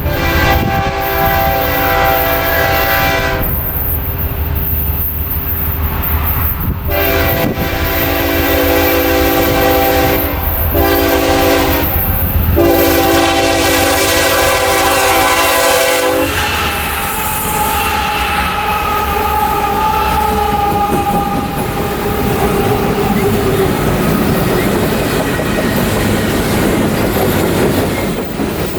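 BNSF freight locomotive's air horn sounding a series of long blasts with one shorter one, stopping about 16 seconds in. The heavy freight train then rolls past with rumbling wheels clacking over the rail joints and a thin, drawn-out squeal.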